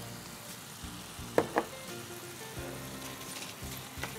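Food sizzling as it fries in a hot kadai while it is stirred, with a brief louder tap about one and a half seconds in.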